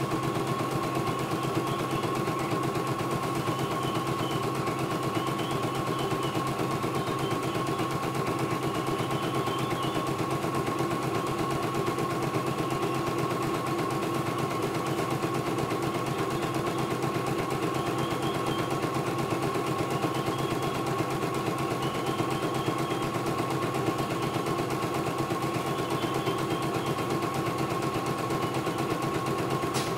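CNY E900 embroidery machine stitching a design in its hoop: a rapid, even needle clatter over a steady motor whine.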